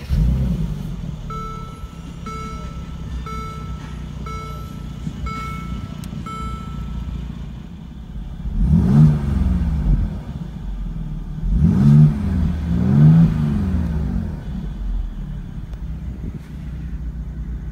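Mercedes-AMG SLC43's 3.0-litre twin-turbo V6 catching and flaring on start-up, then idling. It is revved up and back down three times, about nine, twelve and thirteen seconds in. A short chime beeps about once a second, six times, during the first seven seconds.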